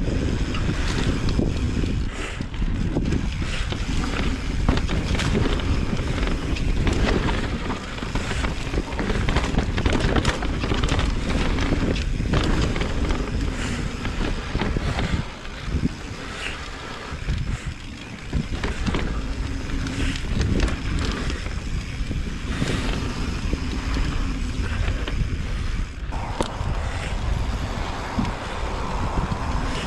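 Mountain bike rolling down a dirt trail: wind buffeting the microphone over tyre noise, with the bike clattering and knocking over rocks and bumps.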